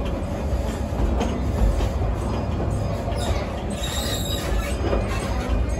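Theme park passenger train running along its track, heard from aboard: a steady rumble of the wheels and cars, with a brief faint squeal from the wheels a little past the middle.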